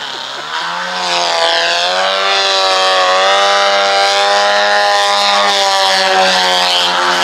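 Aerobatic radio-controlled model airplane's engine and propeller running at high power through low maneuvers and a low pass. The steady drone swells about a second in, and its pitch sags slightly and then rises again.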